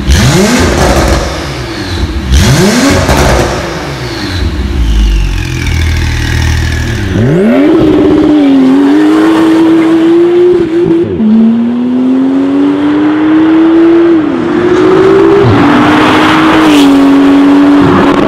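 Porsche 991.2 Carrera 4S's 3.0-litre twin-turbo flat-six through an Fi valvetronic exhaust with the valves open. It is blipped in several sharp revs, then accelerates hard through the gears, the pitch climbing in each gear and dropping at each upshift.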